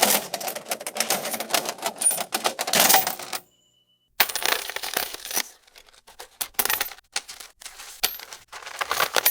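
Cash register clattering: keys and mechanism clicking in rapid runs, with a dense run, a gap, a second run about four seconds in, scattered clicks, and another dense run near the end.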